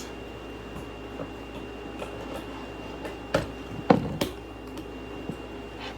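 Scissors cutting through a hair dryer's power cord: three sharp snips close together a little past the middle, over a faint steady background hum.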